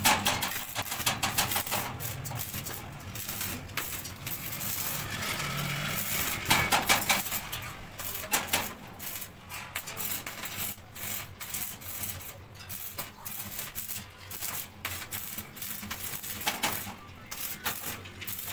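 Stick (arc) welding on a steel square-tube frame: the electrode arc crackles and sizzles in irregular spurts, stopping and restarting from joint to joint.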